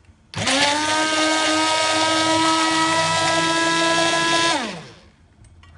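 Hand-held immersion blender switched on in a pan of cream sauce, its motor spinning up quickly and whining steadily for about four seconds as it blends in butter to froth and mount the sauce, then winding down with a falling pitch when switched off.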